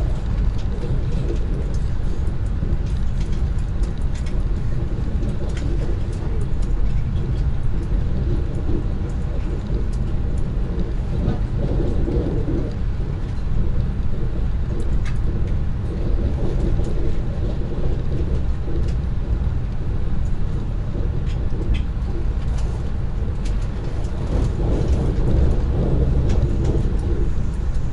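Lastochka (ES1P) electric multiple unit running at speed, heard from inside the passenger car: a steady low rumble of the wheels on the rails and the car's running noise.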